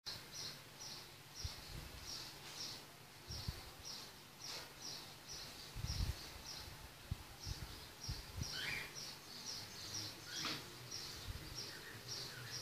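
A small bird chirping: short high chirps repeated about two or three times a second, with a couple of brief falling whistles about two-thirds of the way in. Low thumps of handling noise are underneath.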